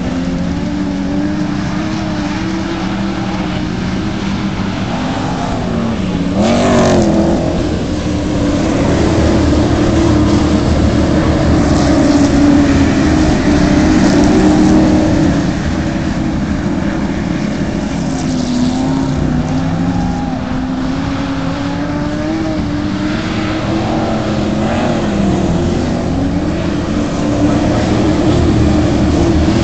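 A pack of winged sprint cars racing on a dirt oval, many engines running hard at once, their pitch rising and falling as the cars go round. One car passes close with a quick swoop in pitch about six to seven seconds in.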